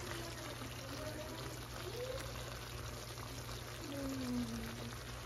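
Steady watery hiss of liquid in the kitchen, with faint voices under it.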